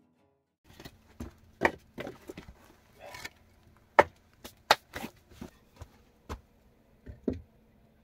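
Hatchet splitting short logs into kindling on a wooden chopping block: about fifteen sharp wooden knocks at uneven spacing, the loudest about four seconds in.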